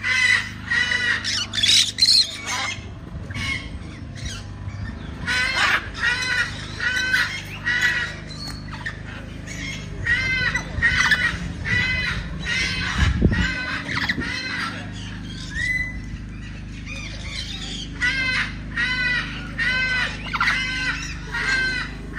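Birds calling: short, squawky, arching calls repeated in quick runs, with a low steady hum underneath.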